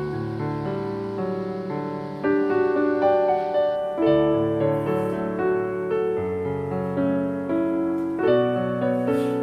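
Slow instrumental background music played on piano, with a new note or chord about every second.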